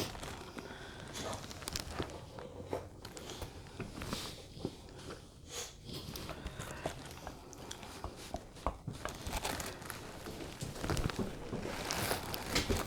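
Close-miked eating sounds: chewing, with many short clicks and crackles scattered throughout.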